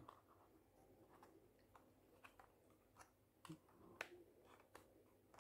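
Faint handling sounds: soft scattered clicks and rubbing of a rubber grip being pressed and tucked onto the plastic handle of a Jumper T-Pro radio transmitter. The sharpest click comes about four seconds in.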